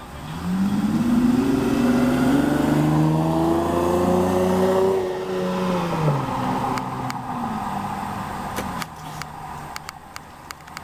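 A motor vehicle engine speeding up, its pitch rising over a few seconds and then dropping as it eases off. Several short sharp clicks follow near the end.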